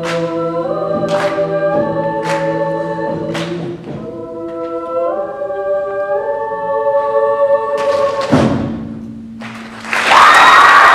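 High school chamber choir singing held chords that step from one to the next, with sharp claps in time about once a second over the first few seconds. A final loud strike comes past the eight-second mark, the last chord dies away, and the audience bursts into cheering and applause about a second before the end.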